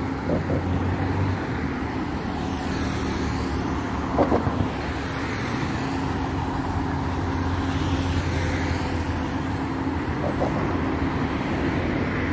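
Road traffic on a multi-lane city road: a steady rush of car tyres and engines, with vehicles swelling past a couple of times.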